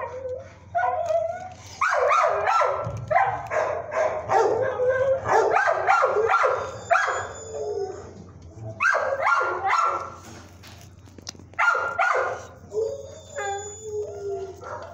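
Shelter dogs barking in quick runs of loud barks that pause and start again, ending with a drawn-out howl.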